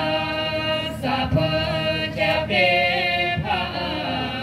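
A group of voices chanting a traditional paddy-harvesting dance song together, in long held notes with short breaks between phrases. A couple of low thumps sound under the singing.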